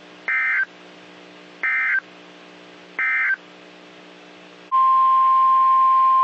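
NOAA Weather Radio emergency alert signal: three short bursts of SAME digital data tones, evenly spaced, then about 4.7 seconds in the steady 1050 Hz warning alarm tone starts, signalling that a new warning is about to be read.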